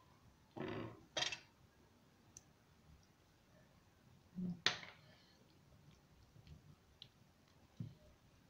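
A few soft clicks and knocks of a spoon and fork against dishes: two close together near the start, the sharpest about four and a half seconds in, and a faint one near the end.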